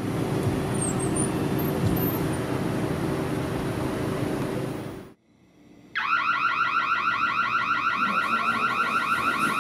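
Steady background noise with a low hum, which cuts out about five seconds in. After a second's gap an electronic alarm starts, a loud, rapidly repeating warbling tone, several pulses a second.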